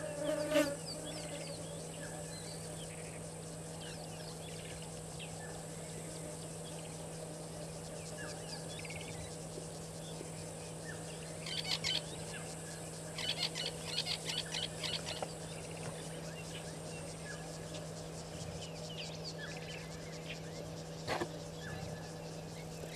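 A steady high insect drone with scattered short bird chirps, and two bursts of rapid chirping near the middle. A steady low hum runs underneath, and there is one sharp click near the end.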